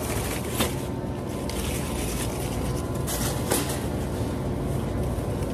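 Plastic-wrapped cases of bottled water being lifted and loaded into a shopping cart: rustling plastic and a couple of short knocks, over a steady low hum.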